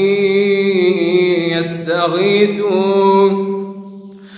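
A young man's voice reciting the Quran in melodic tajweed style, drawing out long held notes that trail off about three and a half seconds in. A steady low drone runs underneath.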